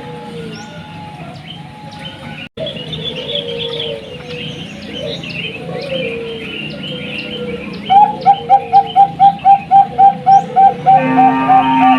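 Zebra doves of the Bangkok strain (perkutut bangkok) cooing, with smaller birds chirping higher up. From about eight seconds in comes a loud, even run of short coos, about three and a half a second. The sound drops out for a moment about two and a half seconds in.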